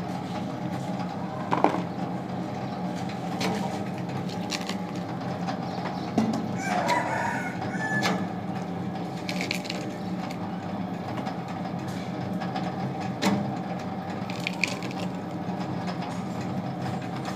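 Passion fruit pulp-extracting machine running with a steady motor hum, and a few sharp knocks as fruit are worked in its steel bowl. A rising and falling call comes about seven seconds in.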